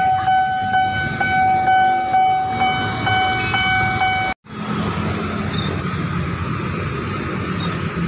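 Railway level-crossing warning signal sounding one steady high tone over the rumble of waiting traffic, cutting off abruptly a little over four seconds in. After that, street traffic with motorcycle engines running.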